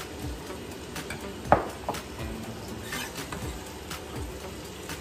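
Pork sautéing in a pan, a steady frying sizzle, with a sharp knock about a second and a half in and a few lighter clicks as a glass bowl of chopped banana heart is handled and moved on the counter.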